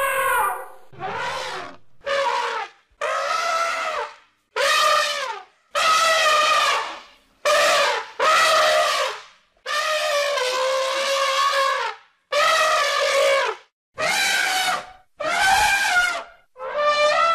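Asian elephant trumpeting over and over while a calf is being born: about a dozen loud, brassy calls, each about a second long, with short pauses between them.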